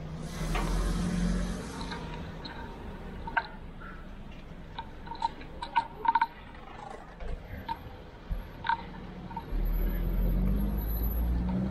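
Street traffic heard from a slowly ridden bicycle: a low rumble that swells about half a second in and again near the end, with a scatter of short, high chirps or clicks through the middle.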